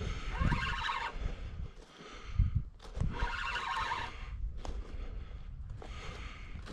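Fishing reel ticking fast in three bursts of about a second each as a hooked carp is played on the rod, over low handling bumps and rumble.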